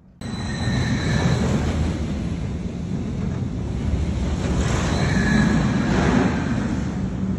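Roller coaster train running along its track on an empty test run: a steady rumble that swells about five seconds in, with wind on the microphone.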